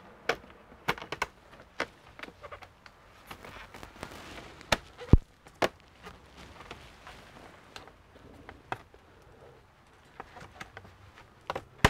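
Clicks and knocks of a Dell Alienware 15 R3 laptop's bottom cover being handled and pressed into place by gloved hands: scattered sharp taps, the loudest about five seconds in, with another cluster near the end.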